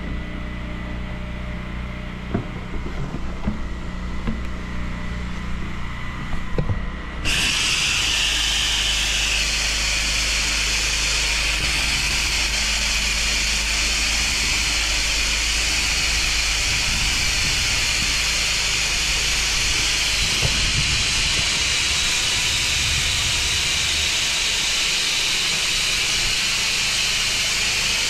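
A pressure washer runs with a steady low hum and a few knocks. About seven seconds in, the trigger opens and the X-Jet chemical injector nozzle on the lance sprays with a sudden, loud, steady hiss, laying a wide fan of treatment onto the block paving.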